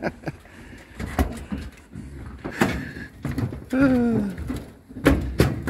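Footsteps clanking and thudding on a floating dock and its aluminium gangway ramp, a few hollow knocks a second or so apart. About four seconds in there is a short tone that slides down in pitch.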